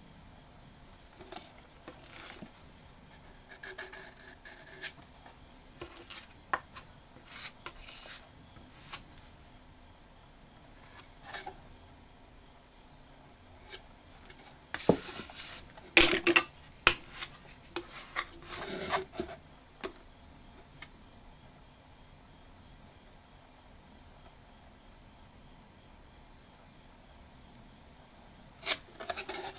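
Spatulas scraping and tapping on the corner of a lacquered box as sabiji (lacquer ground paste) is spread on: scattered light scrapes and clicks, busiest and loudest about halfway through and again near the end.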